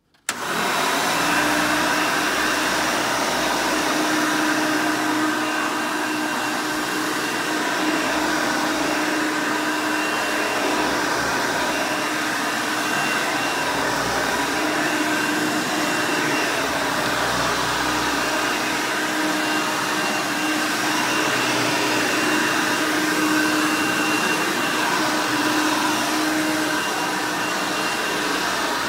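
Hoover Elite 200 upright vacuum's 5-amp direct-air motor switching on and coming up to full speed within a fraction of a second, then running steadily and loudly with a constant whine over a rushing of air.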